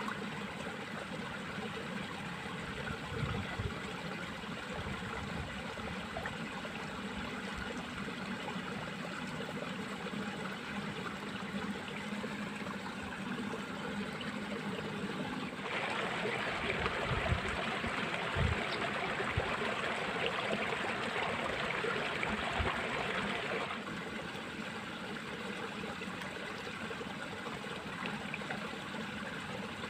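Water running and trickling in a small irrigation ditch, a steady rushing that grows louder for about eight seconds in the middle, with a few low bumps.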